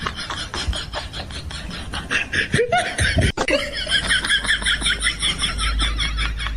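A person laughing, over a steady rapid ticking.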